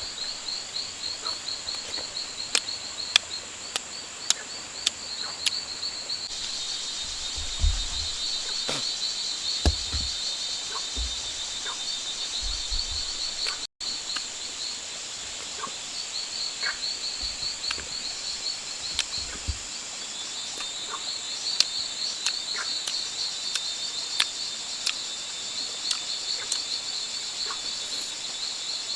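Rainforest insect chorus: a steady, fast-pulsing high trill with a constant thin whine above it, broken by scattered clicks and a few low thuds.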